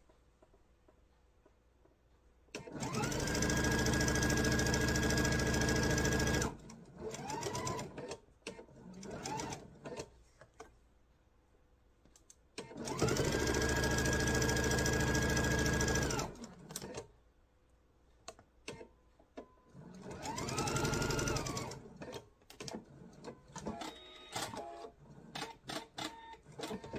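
Electric sewing machine stitching in three long runs with a few short bursts between them. Each run rises to speed with a climbing whine, holds steady, then winds down. It is chain piecing quilt patches, one seam after the next.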